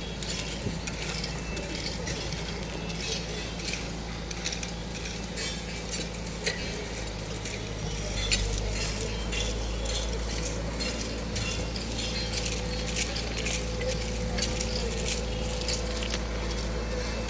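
Construction site noise: a machine engine running steadily with frequent metallic clinks and clanks over it.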